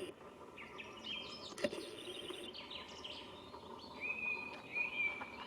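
Songbirds singing: many quick chirps and short trills, with a high whistled note held for about a second near the end. A single sharp click sounds about a second and a half in.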